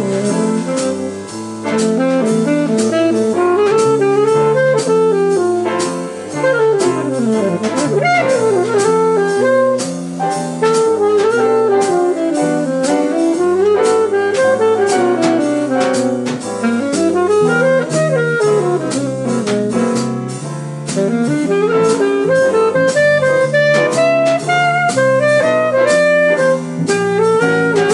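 Jazz band playing an instrumental solo chorus: a lead line winding up and down over a walking bass and drums keeping steady time with regular cymbal strokes.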